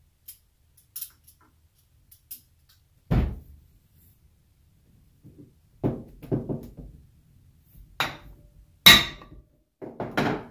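Knocks and thunks of a JB 6 CFM vacuum pump's metal housing being handled on a wooden workbench: a few light clicks, a heavy thump about three seconds in, then a string of knocks as its front cover is worked, the loudest near the end.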